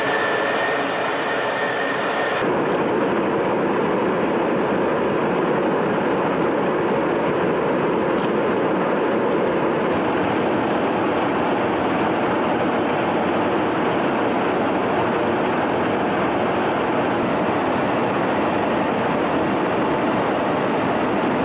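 Steady rush of air and engine noise inside a jet tanker aircraft in flight. A thin high steady tone stops abruptly about two seconds in, where the noise changes character.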